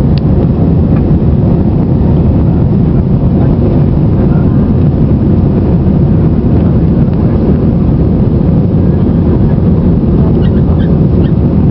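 Steady, loud low rumble of cabin noise inside an Airbus A320-family jet airliner climbing after takeoff: engine noise and rushing air heard through the cabin wall, even throughout.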